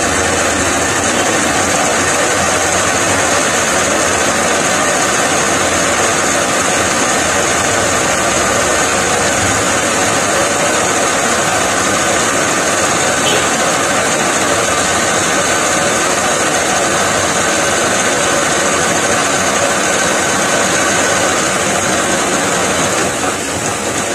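Metal lathe running with a turning tool cutting a steel workpiece, throwing off chips. A steady, loud machining noise with a strong high hiss.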